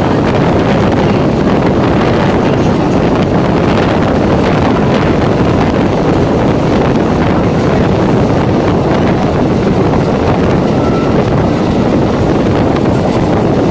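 Running noise of an EMU local train heard from on board: a steady rumble of the train on the track, with wind buffeting the microphone.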